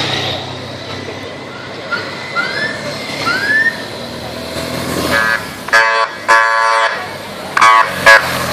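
Police BMW motorcycle outrider sounding its horn in five blasts from about five seconds in, one of them longer than the rest, over a steady background hum. Earlier, a few short rising-and-falling chirps.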